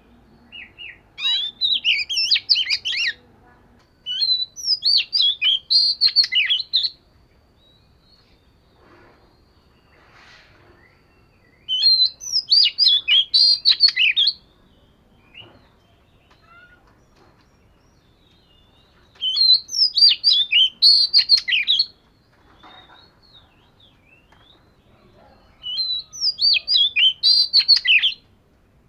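Oriental magpie-robin singing: five bursts of rapid, varied notes, each two to three seconds long, with pauses between.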